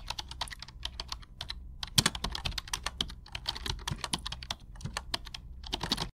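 Typing on a computer keyboard: a quick, irregular run of key clicks with brief pauses, over a faint low hum.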